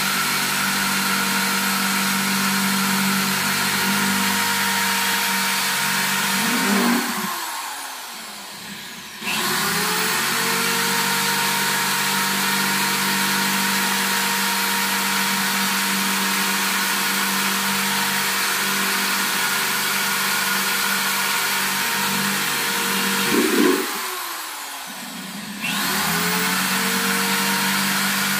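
Handheld electric drill running steadily at speed, boring holes through the bottoms of plastic flowerpots. Twice the motor is let off and winds down, then spins back up with a rising whine about two seconds later.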